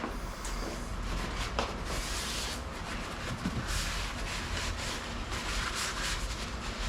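Paper towels rubbing and wiping, an irregular run of rustling and scraping with a few sharp clicks, as spilled engine oil is cleaned up.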